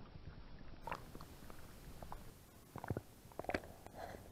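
Water sloshing against an action camera's waterproof housing as it goes below the surface, heard muffled through the housing, with scattered short pops and knocks, the loudest a little past three seconds in.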